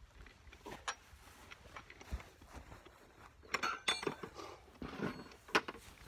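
Scattered light metallic clinks and taps of lug nuts being fitted on a compact tractor's front wheel hub, the busiest stretch a little past the middle and a sharp click near the end.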